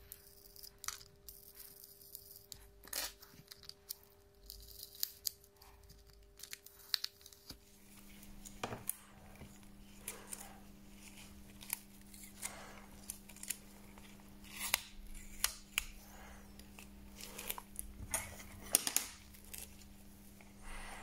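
Repeated short scrapes, clicks and peeling sounds of small hand tools working on the parts of a Huawei P8 Lite 2017 smartphone during a screen replacement. A steady electrical hum runs underneath and drops in pitch about seven and a half seconds in.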